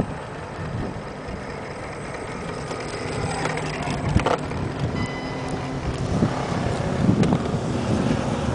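1/5-scale electric RC car with a brushless motor driving on gravel: a thin motor whine over gritty tyre noise on the stones, getting louder toward the end.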